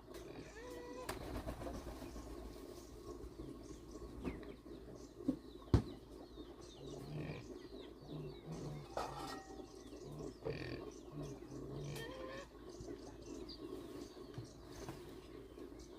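Rural outdoor ambience: small birds chirping on and off over a steady low background hum, with a run of short, low, repeated animal calls in the middle and one sharp knock about six seconds in.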